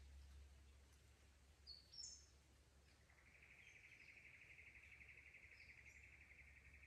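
Faint forest ambience: two short, high bird chirps about two seconds in. From about three seconds in, a fast, even trill runs on steadily over a faint low rumble.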